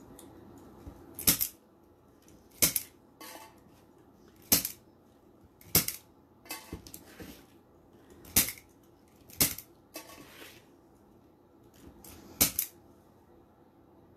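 Plastic zip ties being tightened and cut with a zip tie gun: about seven sharp snaps a second or two apart, with softer rustling of the ties and fabric petals between.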